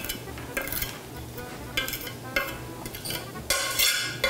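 Knife blade scraping chopped chives off a plastic cutting board into a plastic mixing bowl, in a series of short scrapes that come thicker near the end.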